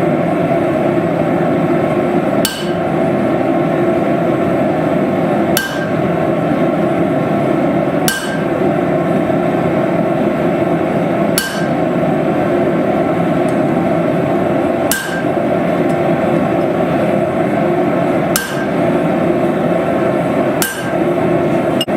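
Steady, dense hammering on steel while a knife is forged, with a brief sharp click every two to four seconds.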